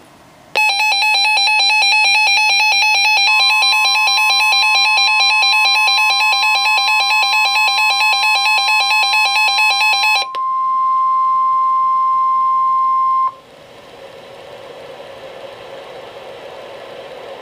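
A weather radio's electronic alert alarm beeps in a fast pulse for about ten seconds. From about three seconds in, the NOAA Weather Radio warning alarm tone sounds with it as one steady tone, the signal that a warning message follows. The beeping stops and the steady tone carries on alone for about three seconds, then cuts off to radio hiss.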